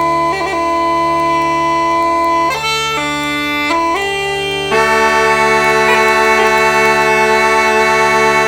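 A full set of uilleann pipes in D (a 2011 Chris Bayley set) playing a slow air. The chanter plays a melody of long held notes, with short ornaments, over steady drones. From about halfway in, one louder note is held long with a slight waver.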